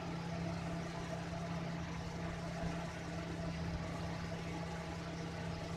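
A steady low machine hum over an even background hiss, unchanging throughout.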